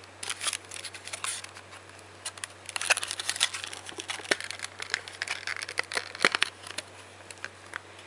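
Thin clear plastic clamshell tray of a boxed CPU crinkling, crackling and clicking as hands flex it and open it. The crackles come in an irregular run, busiest in the middle, and die away near the end.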